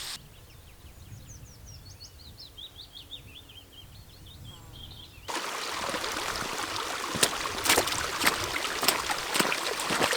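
A small bird sings a quick series of chirping notes that step down in pitch. About five seconds in, the sound cuts abruptly to a loud, steady hiss with many sharp crackles.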